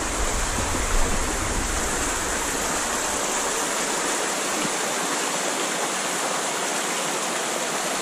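A shallow stream rushing and splashing down between boulders in a small cascade, a steady, even rush of water.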